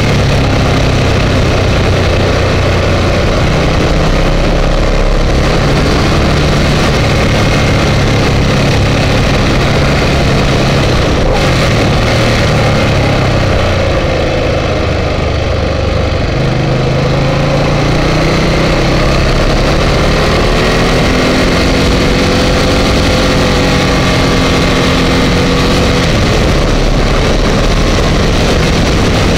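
Ducati Multistrada 1200 S's 1198 cc L-twin engine running on the road, with a haze of wind noise. Its pitch drops about halfway through as the bike slows for a tight bend, then rises steadily as it accelerates out.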